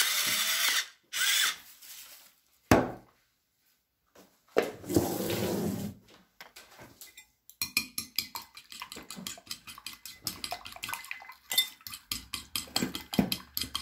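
A pepper mill grinding in two short bursts, one ending about a second in and one around five seconds in. Then a fork beats eggs in a ceramic bowl, a rapid run of light clinks and taps through the second half.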